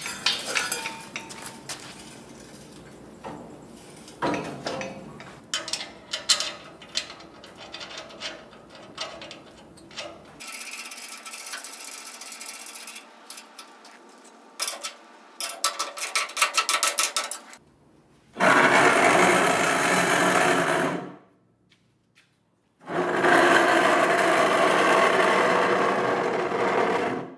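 Steel parts and hand tools knocking and clanking as a chassis is bolted to a rotisserie. Then come two loud stretches of steady machine whirring, a few seconds each, separated by a brief silence.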